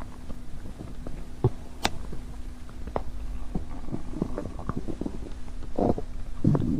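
Stomach growling: a run of short gurgles and pops over a steady low hum, with a longer, louder gurgle about six seconds in.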